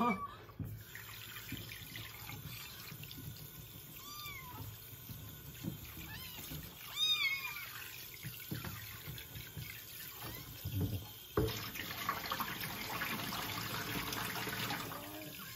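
A wet kitten giving a few short, high meows while being bathed, over running water from a handheld shower head splashing into a basin. The water spray gets louder about two-thirds of the way through.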